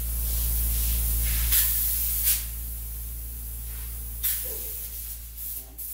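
Spray foam gun hissing steadily as it sprays closed-cell polyurethane insulation foam, over a low steady hum, with three short louder spurts of spray, fading near the end.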